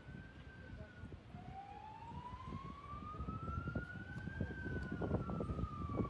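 Emergency vehicle siren wailing in slow cycles: a falling tail at the start, then a long rise from about a second in to a peak around four seconds in, falling again near the end. Underneath runs a dense low rumbling noise with crackles.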